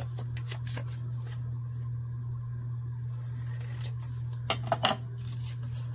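Scissors snipping folded paper: a few light snips in the first second and a half, then three sharp snips close together about four and a half seconds in, over a steady low hum.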